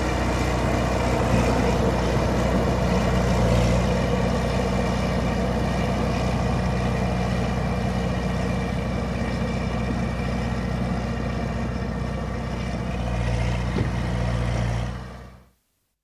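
Tracked bulldozer's diesel engine running steadily, swelling a little twice, with one sharp knock near the end before the sound fades out.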